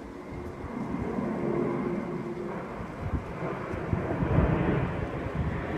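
Aircraft engines, which the uploader takes for an Airbus A400M Atlas's turboprops, approaching and growing steadily louder, with wind buffeting the microphone.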